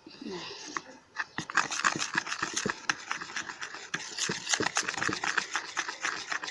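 Quick, irregular clicking and scraping of a utensil stirring a runny glue-and-activator slime mixture in a container, starting about a second in; the mixture has not set and stays liquid.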